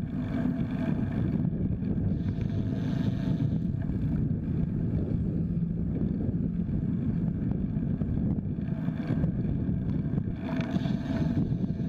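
Steady low rumble of wind buffeting a bike-mounted camera's microphone while riding. Passing road traffic swells in a few times, near the start, about three seconds in, and again near the end.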